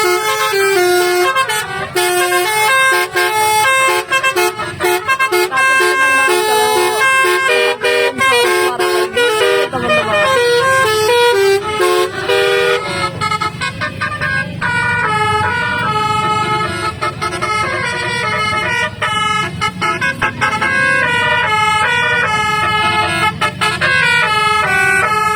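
Basuri musical vehicle horns playing fast, stepped melodies, one tune after another. A falling siren-like glide comes about ten seconds in. Through the second half a vehicle engine runs low beneath the horn tunes.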